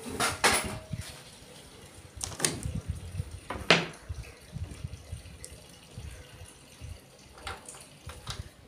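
Cotton shirt cloth rustling and swishing as it is spread out and handled on a cutting table, in several short bursts, the loudest and sharpest a little before four seconds in.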